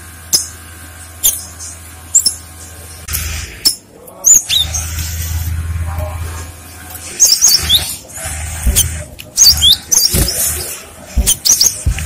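Cinereous tit (gelatik batu) calling: short, sharp high chirps and quick whistled notes in clusters, busier in the second half, over a low steady hum.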